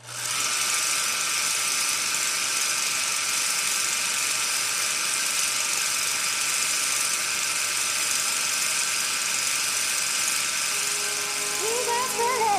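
A steady whirring hiss with a low hum and a few faint steady tones, the hum dropping out about ten seconds in. Near the end a sung melody begins over it.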